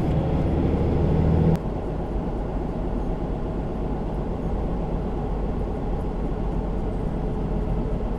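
Vehicle engine running steadily. A humming tone drops out abruptly about a second and a half in, leaving a steady low rumble that cuts off sharply at the end.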